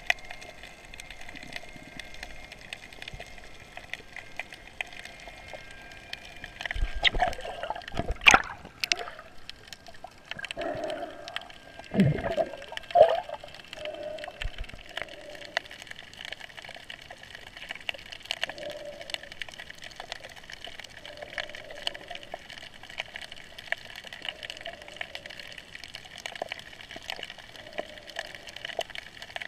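Underwater sound picked up by a hand-held camera while snorkeling: a constant crackle of faint clicks over water noise, with louder gurgling and swishing of moving water twice, about a third of the way in.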